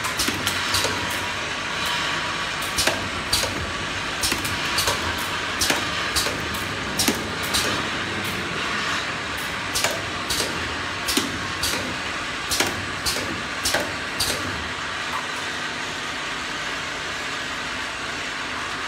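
Automatic bottle capping machine and conveyor running: a steady machine hum with irregular sharp clicks and clacks from the capping station, which stop a few seconds before the end.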